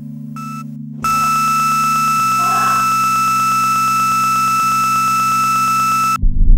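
Patient heart monitor giving a last beep, then from about a second in a single unbroken tone held for about five seconds: the flatline that signals the heart has stopped. A steady low drone runs underneath, and a loud low pounding cuts in near the end as the tone stops.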